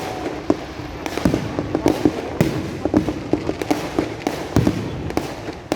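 Fireworks and firecrackers going off from every direction: a constant crackling din broken by irregular sharp bangs and cracks.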